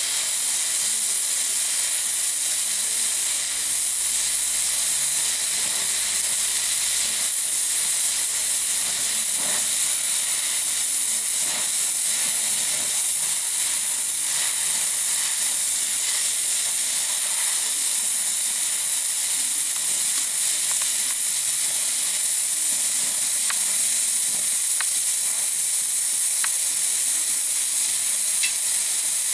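Small oxy-acetylene welding torch flame hissing steadily while fusion-welding a seam in a steel motorcycle fender with filler rod, with a few faint ticks from the weld puddle near the end.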